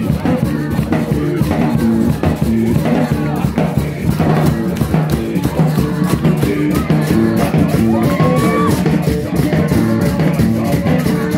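Live band music: a guitar played over drums and bass with a steady beat.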